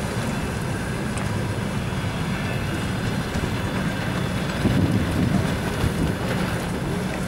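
Passenger coaches of an arriving train rolling slowly past: a steady low rumble of wheels on rails, with a couple of louder knocks past the middle.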